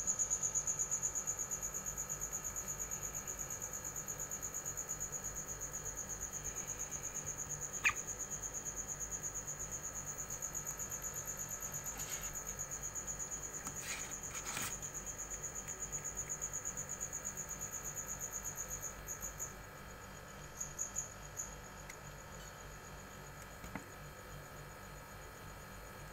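High-pitched insect trill, pulsing in a fast, even rhythm, that stops about three-quarters of the way through, with a few brief returns just after. A few faint clicks, the sharpest about eight seconds in.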